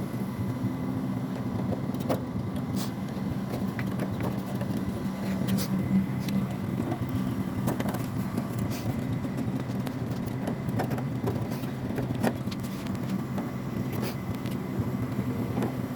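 A steady low machine hum, with scattered light clicks and taps.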